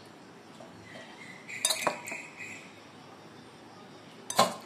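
Metal spoon clinking against a stainless-steel plate while tempering is spooned over dhokla: a few clinks about a second and a half in with a brief ringing tone, then one sharp clink near the end.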